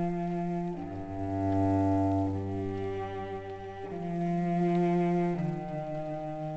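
Slow music of long, sustained low notes, each held about one and a half seconds before moving to the next pitch.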